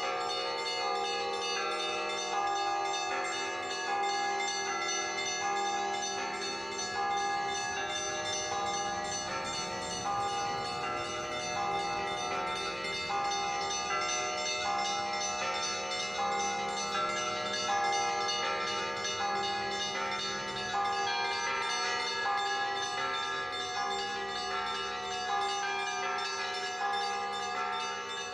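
Russian church bell peal (kolokolny zvon): several bells of different pitches struck in a steady repeating pattern, their tones overlapping and ringing on.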